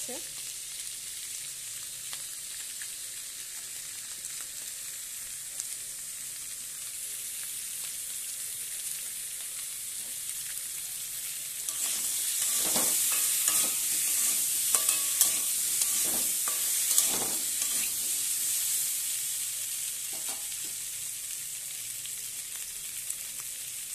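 Boiled baby potatoes frying in oil in a metal kadai with a steady sizzle. About twelve seconds in, a spatula stirs them for several seconds, scraping and knocking against the pan, then the sizzle goes on alone.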